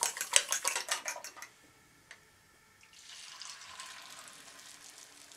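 A utensil whisking beaten egg and banana in a ceramic bowl, quick clicking strokes that stop about a second and a half in. About three seconds in, the egg mixture pours into a hot cast iron pan and sizzles steadily.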